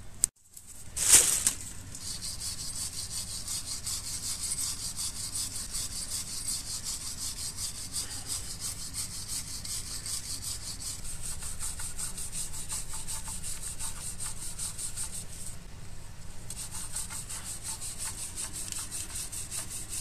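Hand wire brush scrubbed rapidly back and forth over the rusty face of a car's rear wheel hub: a steady rasping scrape that strips surface rust so the brake disc will sit flat and run true. There is a loud knock about a second in, and a short break about three-quarters of the way through.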